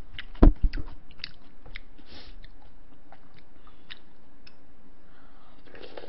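Close-miked chewing and wet mouth sounds of someone eating, with scattered small clicks and smacks. About half a second in come two or three heavy low thumps, the loudest sound.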